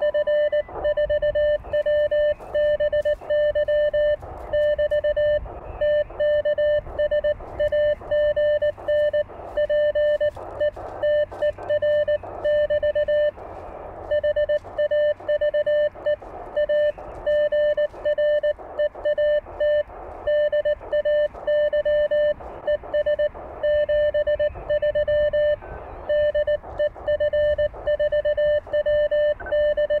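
Morse code sidetone from an Elecraft K1 transceiver keyed with a paddle: one steady beep switched on and off in dots and dashes. The operator is sending the sign-off of a contact ('TKS AGN PETER, HAVE A GREAT DAY, ES 73 DE F4WBY /P SK').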